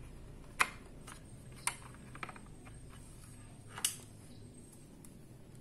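Four sharp plastic clicks from handling a Winner YX-360TRE-B analog multimeter as a test lead's plug is pushed into its jacks, the first the loudest.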